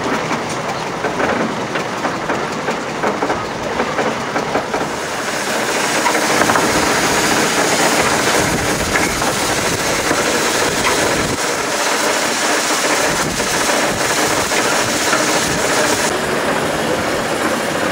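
Small steam launch engine running, with steam hissing out around it; the sound grows louder about five seconds in.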